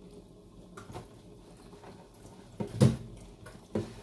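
A metal spoon knocking against a glass baking dish while moving pieces of marinated chicken: a few light clicks, one sharp knock a little under three seconds in, and a lighter one near the end.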